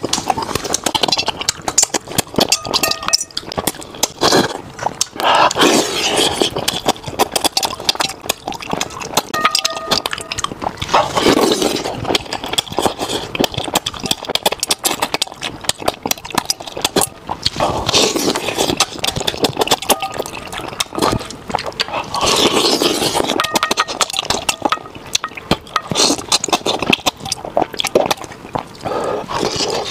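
Close-miked eating sounds: chewing, lip smacks and repeated slurps of saucy food from a bowl, with light clinks of chopsticks against the metal bowl.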